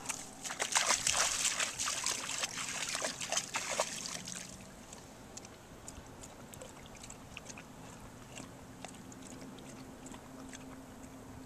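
Rhodesian Ridgeback splashing as it wades into shallow river water, with fast, loud sloshing for about the first four seconds. It then settles to quiet, faint lapping as the dog stands in the water drinking.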